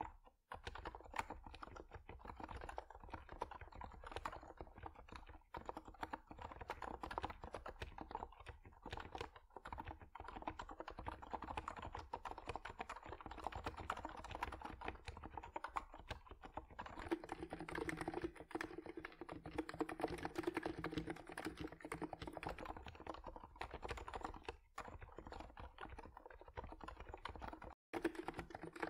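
Continuous typing on electro-capacitive Topre-clone keyboards with PBT keycaps: a fast, dense stream of muted keystrokes, mostly on the NiZ Plum Atom 68 with 35 g springs. About two-thirds of the way through the sound changes to a keyboard whose keystrokes carry a deeper ringing note, as the typing switches between the NiZ and the Cox Endeavour TKL.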